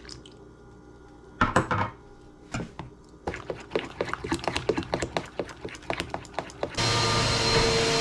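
A run of light knocks and quick clicks, then near the end a vacuum cleaner switches on and runs with a steady whine.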